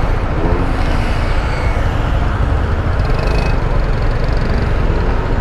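Steady low rumble of a motorcycle ride through city traffic: engine and road noise with wind on the microphone.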